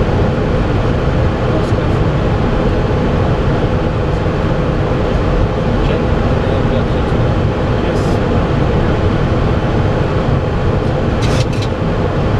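Steady flight-deck noise of a Boeing 737-400 in flight on approach: rushing airflow with the hum of its engines. A few faint clicks come about two thirds of the way in and near the end.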